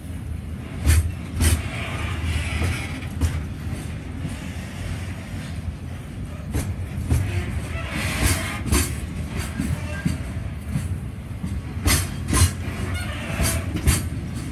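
Container wagons of a freight train rolling past close by: a steady low rumble, with the clack of wheels over rail joints coming in pairs every few seconds.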